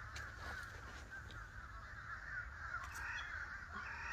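Steady background chatter of many birds calling together, a dense mass of short wavering chirps, with a low rumble underneath and a few faint clicks.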